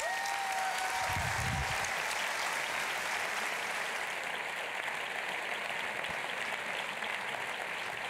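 Theatre audience applauding steadily at the end of a talk, with one long high-pitched call from the crowd in the first couple of seconds.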